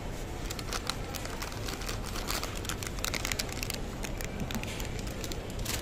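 Plastic wrapper of an instant noodle packet crinkling as it is picked up and handled. It gives a run of short crackles, thickest in the middle, with one sharp crackle at the end.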